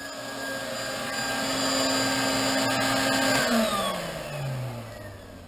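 Vacuum cleaner running, sucking through its hose and crevice tool over carpet, then switched off about three and a half seconds in, its motor winding down with a falling whine.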